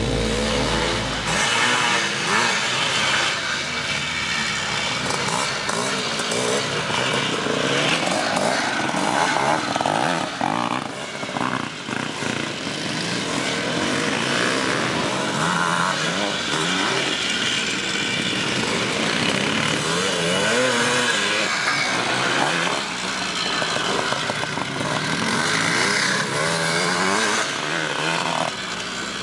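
Hercules off-road motorcycle's single-rotor Sachs Wankel engine revving up and down over and over as the bike is ridden hard, with a short drop in level around ten seconds in.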